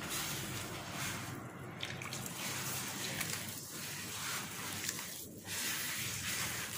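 Hands rubbing and squishing crumbly, damp semolina-and-flour dough against a wide earthenware dish as water is worked in to bring it together: a soft rustling and squelching with brief pauses about a second and a half in and again near the end.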